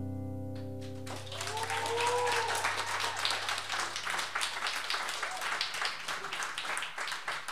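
Acoustic guitar's final chord ringing and fading, stopped about a second in, as the audience breaks into steady applause. A brief whoop from a listener rises and falls early in the clapping.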